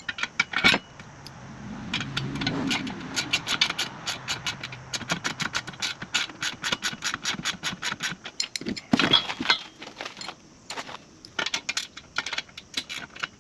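Ratcheting wrench clicking in quick runs of about six clicks a second as bolts are turned, with a few louder metal knocks near the start and about nine seconds in.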